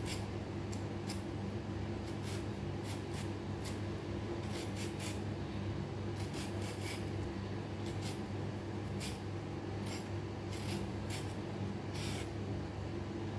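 Vegetable peeler scraping the skin off a small potato in short, repeated strokes, irregular at about one or two a second, over a steady low hum.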